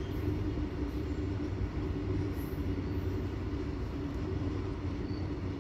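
Covered goods wagons of a freight train rolling past, a steady low rumble of steel wheels on the rails.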